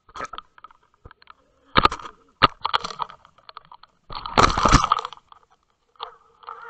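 Knocks, clicks and scraping on an underwater camera housing as a summer flounder hits the bait beside it and the camera is jostled down against the sand bottom. The loudest part is a rough scraping rush about four seconds in that lasts nearly a second.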